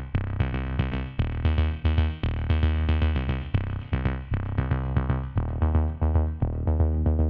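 Electronic background music: synthesizer chords over a drum-machine beat, keeping a steady pulse.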